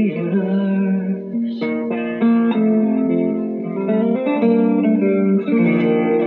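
Acoustic guitar played live in an instrumental passage, plucked notes and chords left ringing over one another and changing every half second or so, with one sharp, bright pluck about one and a half seconds in.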